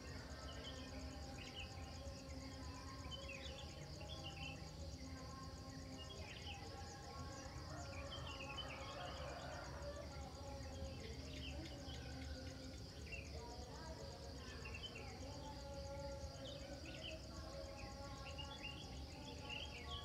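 Outdoor morning ambience, faint: a steady, evenly pulsing insect trill with scattered short bird chirps over it.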